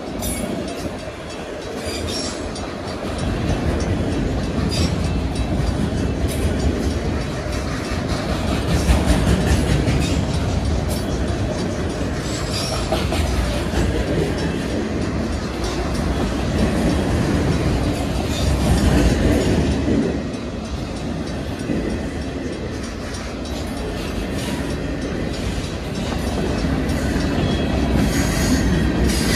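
Freight train cars rolling past close by: a steady rumble of steel wheels on rail, with repeated clicks as the wheels pass over rail joints.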